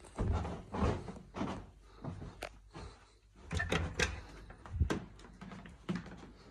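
Soft footstep thumps on a carpeted floor and knocks from handling a hand-held phone camera while walking, with a quick cluster of sharper clicks a little past halfway as a door is passed close by.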